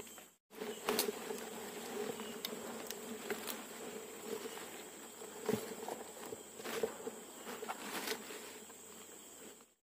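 A flying insect buzzing close by with a wavering drone, over a steady high-pitched insect whine. About six sharp clicks are scattered through it.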